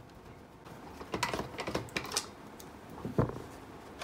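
Small plastic clicks and taps as the last screws are backed out of a Hioki DT4282 multimeter's plastic case and the case is handled, with a single louder knock about three seconds in.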